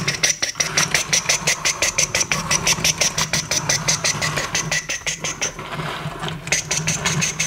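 Motorised toy train running: a small electric motor whines steadily while its drive clicks rapidly, about eight times a second. The whine drops out briefly near six seconds, then picks up again.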